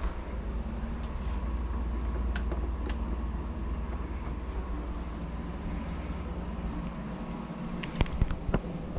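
Steady low mechanical hum and rumble, with two faint ticks about two and a half and three seconds in, then three sharp clicks or knocks near the end, the loudest sounds here.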